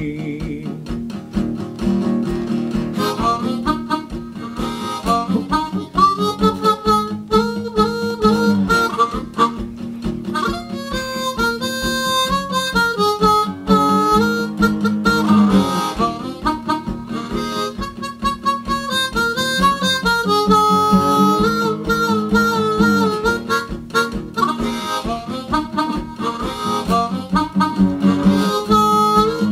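Blues harmonica solo with held and bent notes over a strummed acoustic guitar with a steady rhythm.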